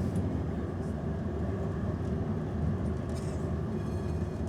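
Interior of an Amsterdam tram: a steady low rumble of the tram running along its rails, with a few faint high rattles.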